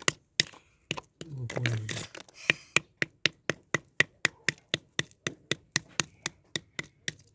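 A run of quick, evenly spaced sharp taps, about four a second, with a short stretch of a voice between one and two seconds in.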